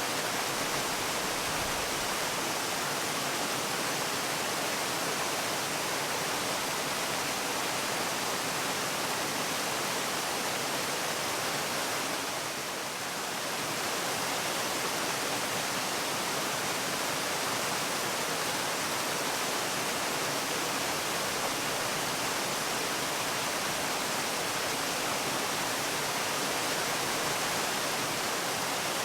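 Waterfall rushing in a steady, even hiss, dipping slightly in level about halfway through.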